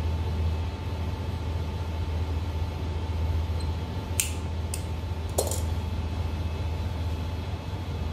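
Wire stripper snipping the ends of thin cable cores, three crisp clicks a little past the middle, over a steady low hum.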